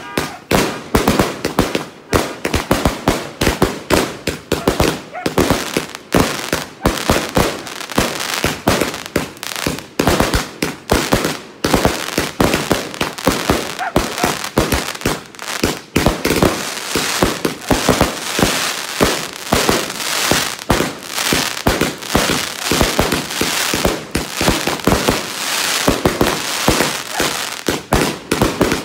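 A fireworks barrage: aerial shots launching and bursting in rapid succession, several bangs a second with no break, and a thicker crackle over the bangs in the second half.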